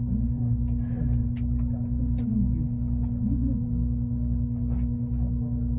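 Transit bus engine and drivetrain running, heard from inside the bus: a constant hum over a regular low pulsing about twice a second, with two sharp clicks in the first half.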